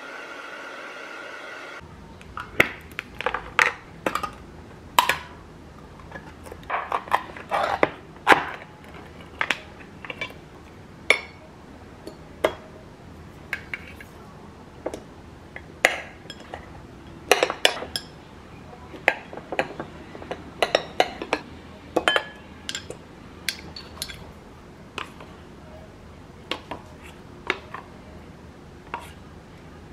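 A hair dryer blows steadily, then cuts off about two seconds in. A long run of irregular sharp clinks and taps follows, one or two a second: a kitchen knife against an opened tin can, a ceramic plate and a glass.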